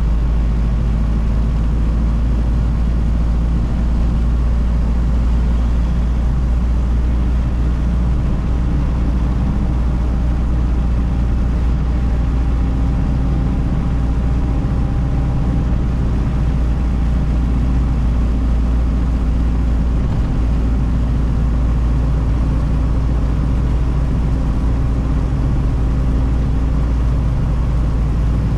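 A 1932 Ford Model B's four-cylinder engine running steadily under way at cruising speed, heard from inside the cabin.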